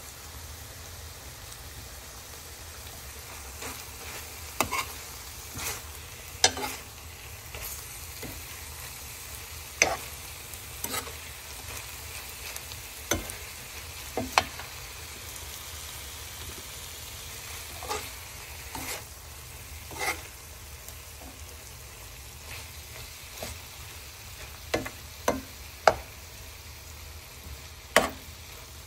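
Pork pieces with green onions frying in a nonstick pan: a steady sizzle, with a spatula scraping and knocking against the pan every second or two as the meat is stirred.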